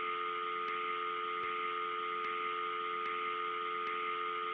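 Steady telephone line tone with hiss, like a dial tone on a phone left off the hook, with faint clicks a little under once a second.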